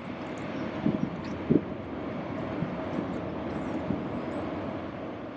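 Jet airliner engine noise, a steady rushing hum that swells slightly through the middle, with a few short low thumps about a second to a second and a half in.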